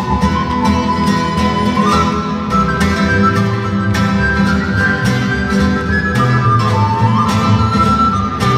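Live acoustic folk instrumental: a whistle carries the melody in long held notes over strummed acoustic guitar and double bass. The melody steps up in pitch about two seconds in and again near the end.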